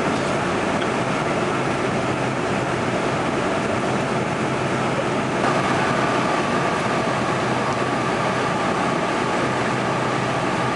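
Steady jet airliner cabin noise in flight: a constant rush of engine and airflow. A faint steady whine joins in about halfway through, with a slight rise in level.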